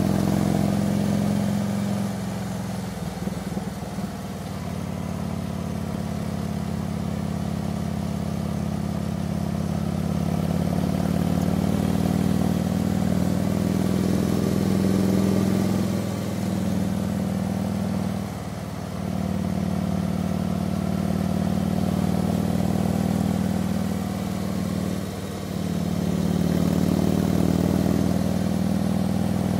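Harley-Davidson touring motorcycle's V-twin engine running steadily under way, heard from the rider's seat with wind rush. The engine note dips briefly twice, about eighteen and twenty-five seconds in, then picks back up.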